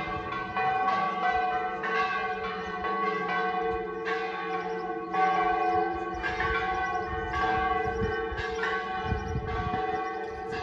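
Church bells ringing from a bell tower, struck again about once a second so that their tones ring on and overlap.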